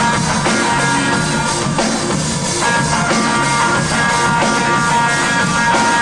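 Live rock band playing, with electric guitar over a drum kit, loud and steady.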